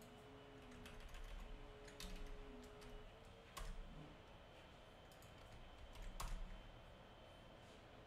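Faint, scattered computer keyboard keystrokes, a handful of separate taps, over a low steady hum.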